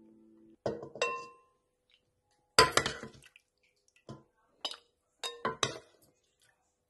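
Serving spoon and ladle clinking and knocking against a plate, a cooking pot and a ceramic bowl while food is dished up. The sharp clinks come one at a time, the first ones ringing briefly, with a louder clatter about two and a half seconds in.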